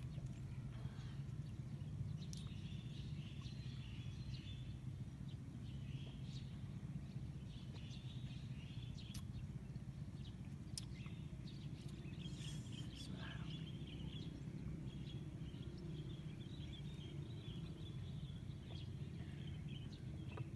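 Quiet outdoor ambience: a steady low rumble with faint, scattered high chirps, likely birds, and a few soft ticks.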